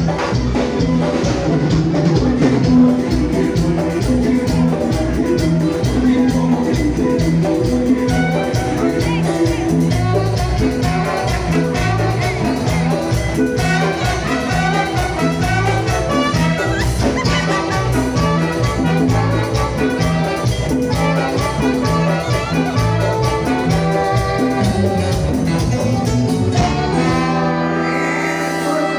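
A Latin dance band playing, with trumpets and trombone over a steady bass and drum beat. Near the end the bass drops out for a moment under a brass run.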